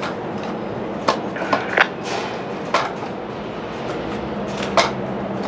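Strong gusty wind buffeting the microphone as a steady rushing noise, broken by about five sharp knocks, with a faint steady low hum joining near the end.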